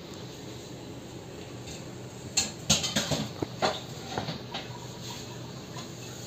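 Steady low kitchen hum, with a run of light clicks and knocks from about two to four and a half seconds in.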